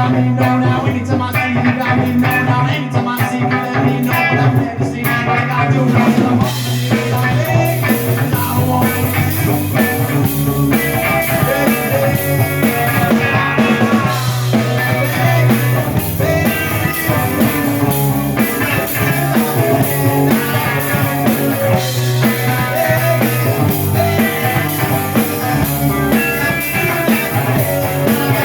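Rock band playing with drum kit, electric guitar and bass, a steady beat under a strong bass line, in a stretch with no sung words.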